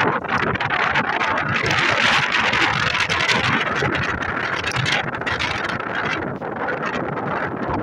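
Wind buffeting the microphone in gusts, over the faint sound of a red locomotive approaching along the line in the distance.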